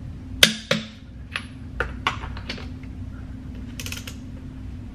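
Click-type torque wrench tightening wheel lug bolts to 118 ft-lb: a string of sharp metallic clicks as the wrench breaks over at the set torque, then a short run of fast ratchet clicking near the end as the wrench is swung back.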